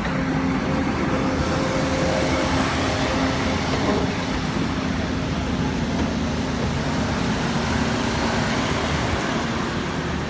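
Train running close by: a steady, loud rumble with a constant engine hum.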